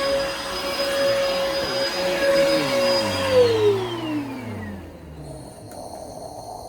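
Bissell Helix vacuum cleaner running with a steady motor whine. About three seconds in it is switched off, and the whine falls in pitch for a second or two as the motor spins down.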